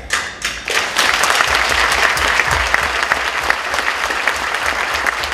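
Audience applauding, many hands clapping; it starts at once after a speech ends, grows to full strength within about a second and then holds steady.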